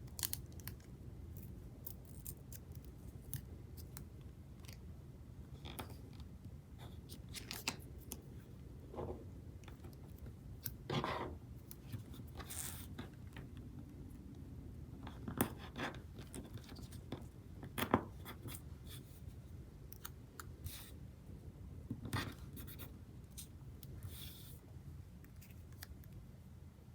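Scissors snipping now and then, with short scratchy sounds of tape and paper being handled, all faint and scattered.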